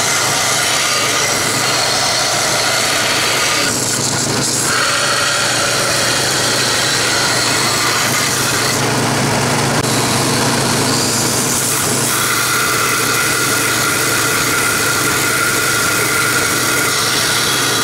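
Large vertical belt sander running with a small metal part pressed against its abrasive belt and being ground down, a steady grinding rush over the motor's hum.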